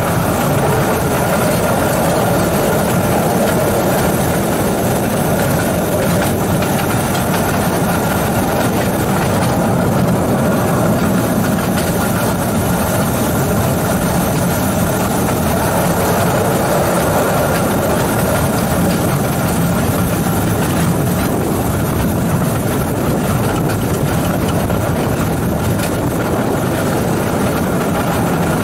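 Steady running noise of a small 2 ft gauge electric locomotive, heard from its cab as it rolls along the track: a constant rumble with a thin steady whine over it, without change in speed.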